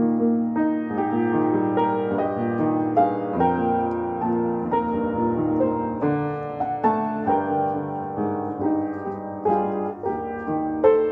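Piano music: sustained chords and melody notes played continuously.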